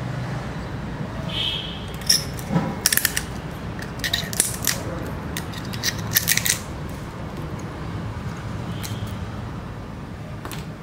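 Small cutting pliers biting and cracking off pieces of a thin spiral seashell: a run of sharp, crisp snaps bunched in the middle, with one more near the end.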